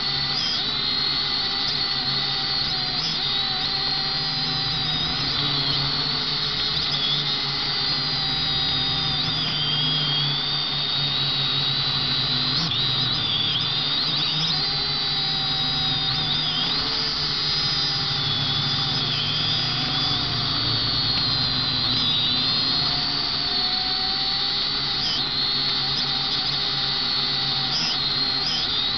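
Potensic quadcopter's electric motors and propellers whining in flight, heard from the drone's own camera. The high whine wavers up and down in pitch as the motors change speed, over a low steady hum.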